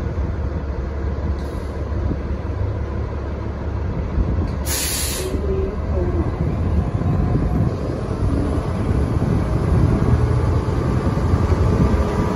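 On-board running noise of a New Flyer XDE60 diesel-electric hybrid articulated bus under way: a steady rumble of drivetrain and road that slowly gets louder. A short, sharp hiss cuts in about five seconds in.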